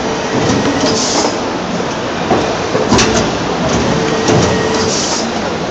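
TSP injection moulding machine running a fast production cycle: steady machine noise with a hum, a sharp clack about three seconds in, and two short hisses, about a second in and near the end.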